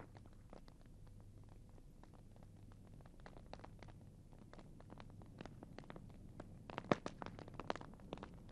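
Wood fire crackling with scattered sharp pops that turn into a quicker, louder run about seven seconds in, over a low steady hum.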